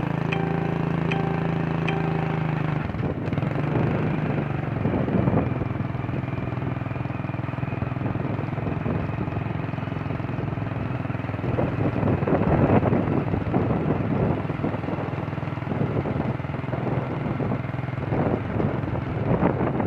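A vehicle engine running steadily, heard as a low hum, which gives way to a rushing noise with gusts of wind on the microphone, strongest about twelve seconds in and near the end.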